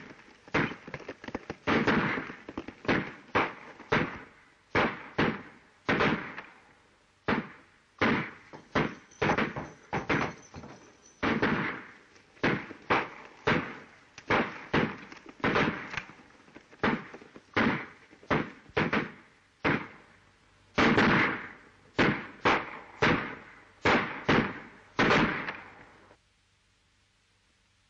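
Gunfight: dozens of pistol shots, irregularly spaced at roughly one or two a second, each sharp crack trailing off in a short echo. The shooting stops suddenly near the end.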